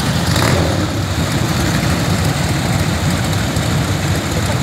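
Several vintage motorcycle engines idling together, a steady low, uneven throb.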